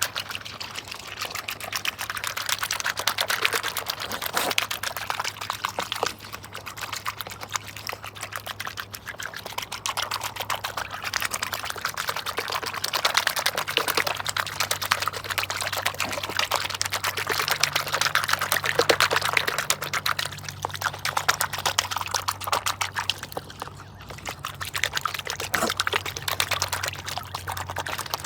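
Swans feeding at the water's surface, their bills dabbling and sifting water in a continuous, rapid run of wet clicks and slurps.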